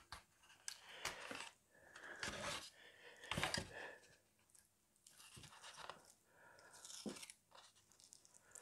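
Faint rustling and scraping of a small carpet piece being pressed and worked into place in a scale model car's interior, in several short, scratchy bursts.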